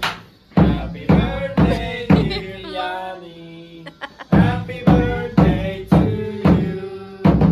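Rope-laced barrel drum struck with a wooden stick in an even beat of about two strikes a second, with voices singing over it. The drumming pauses briefly in the middle, then picks up again.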